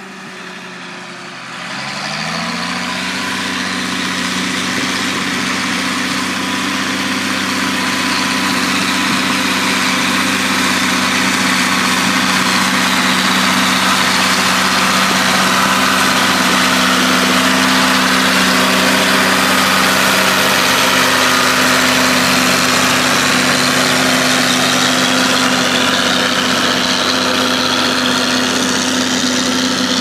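Ford 8210 tractor's six-cylinder turbo diesel engine revving up about two seconds in, then running steadily under load while pulling a reversible plough through the ground. It grows louder as the tractor comes close, with a high whine over the engine note.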